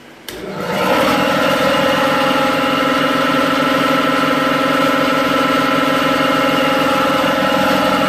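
Westward 13-gallon belt-drive air compressor switched on: its electric motor and belt-driven pump start about a third of a second in, come up to speed within a second, then run at a steady, even pitch.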